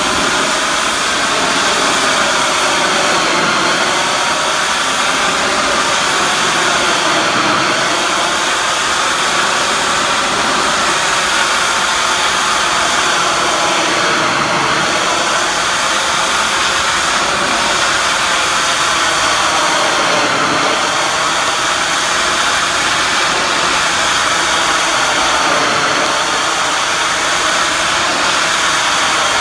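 Pressure washer running steadily, its high-pressure water jet spraying, with a hiss whose pitch wavers slowly up and down.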